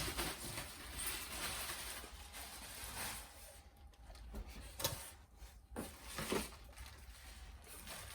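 Rustling and handling noise of unboxing: packaging and plastic vacuum parts being handled, with a few sharp clicks or knocks about five to six and a half seconds in.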